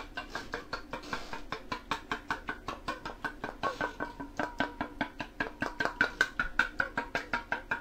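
Chopsticks beating eggs in a stainless steel bowl: a fast, even clatter of about six strokes a second, the metal bowl ringing with each stroke.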